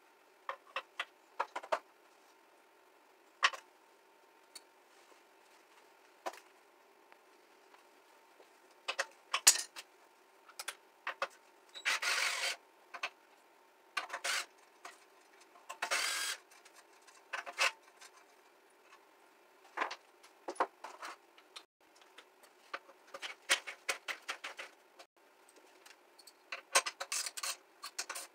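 Hand tools and loose parts clicking, clattering and rattling as a moped is taken apart, with two longer scraping, rustling stretches and a quick run of clicks near the end.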